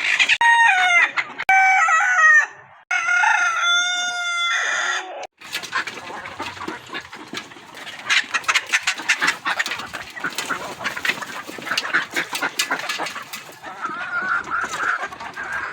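A rooster crows twice in a row, two long wavering calls. Then comes a dense, busy clucking and chattering of many chickens, with a drawn-out call rising out of it near the end.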